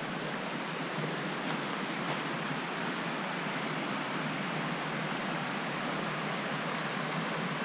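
Steady rushing of a river running over rapids, an even, unbroken noise.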